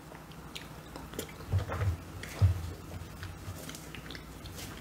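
Quiet eating sounds at a table: soft chewing and fingers working a lump of swallow and dipping it into soup, with a few faint clicks and soft low thumps.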